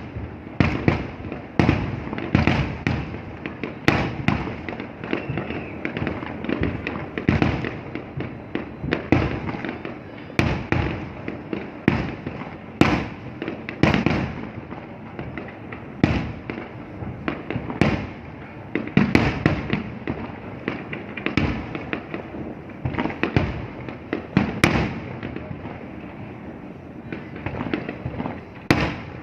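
Fireworks going off in a dense, irregular barrage: dozens of sharp bangs, about one or two a second, over a continuous crackling rumble.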